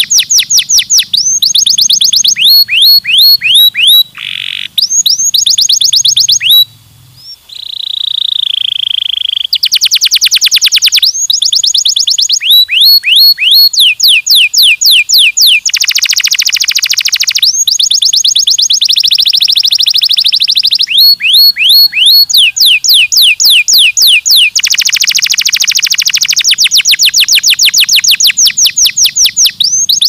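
Domestic canary singing a loud, continuous song of fast repeated notes, running one trill into the next at different pitches, with brief breaks about four and seven seconds in.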